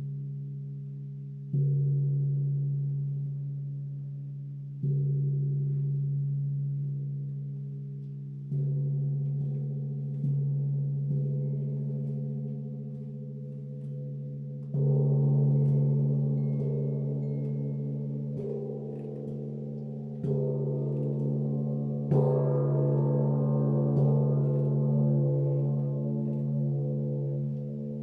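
A gong struck about nine times, a few seconds apart, each stroke a sudden onset that hums low and slowly fades under the next. The later strokes are louder and fuller. Koshi Terra chimes tinkle faintly above it.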